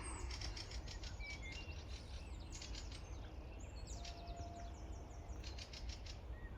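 Short, high bird chirps a few times over a low outdoor rumble, with repeated bursts of crackling.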